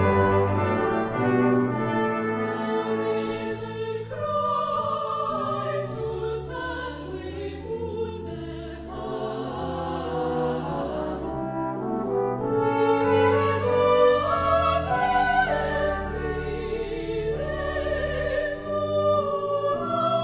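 Brass ensemble playing a slow, sustained chordal arrangement of a sacred piece, with horn and trombone sounds prominent.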